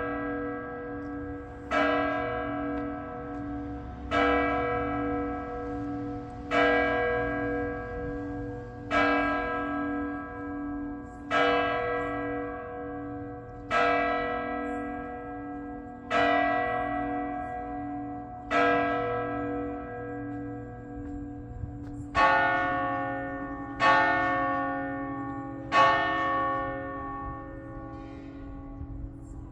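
A church bell tolling slowly, one stroke about every two and a half seconds, each stroke ringing on and overlapping the next. Near the end a differently pitched stroke pattern takes over with three quicker strikes, and then the ringing dies away.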